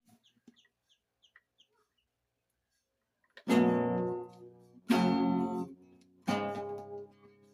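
Acoustic guitar strumming three chords about a second and a half apart, each left to ring out and fade.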